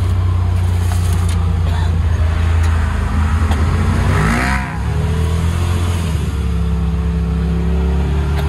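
Polaris RZR Pro XP side-by-side's turbocharged twin-cylinder engine running under load while off-roading. The revs drop briefly with a short hiss about halfway through, then climb back and hold steady.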